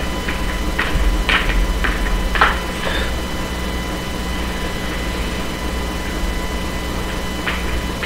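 Steady low rumble with a faint steady hum, broken by a few brief soft knocks in the first three seconds.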